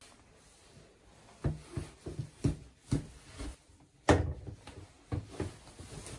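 Sneakers thudding and scuffing on a tile floor as they are put on: a run of soft thuds about two a second, with one louder thud about four seconds in.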